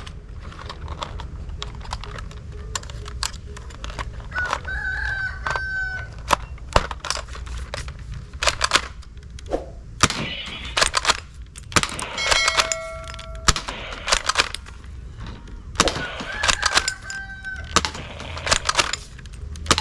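Irregular sharp plastic clicks and knocks, as of a toy gun being handled and worked, over a steady low rumble. A drawn-out pitched call is heard twice, about five seconds in and again near seventeen seconds.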